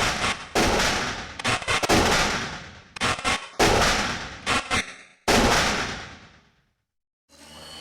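Repeated shotgun blasts, about a dozen in under six seconds, some in quick pairs, each sharp report trailing off in a long echoing tail. After the last one fades, a faint new sound starts near the end.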